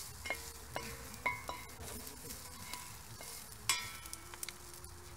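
Yakisoba noodles sizzling in a stainless steel frying pan while two spatulas stir and toss them, with scattered clinks and scrapes of the spatulas against the pan. The sharpest clink comes about three and a half seconds in.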